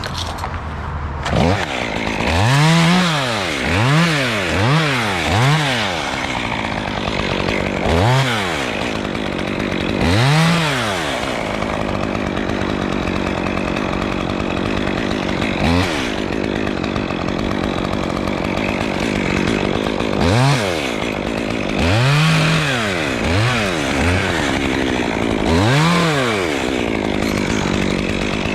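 Chainsaw running, revved up and back down again and again, sometimes several times in quick succession, with shorter running spells in between.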